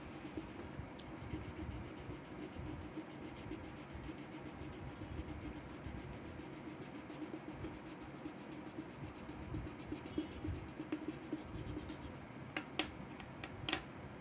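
Crayon rubbing back and forth on a paper workbook page while colouring in, a faint, steady scratching. A few sharp clicks near the end.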